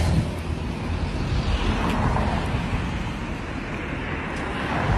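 Wind buffeting the microphone outdoors: a steady rushing noise with a low rumble and no clear events.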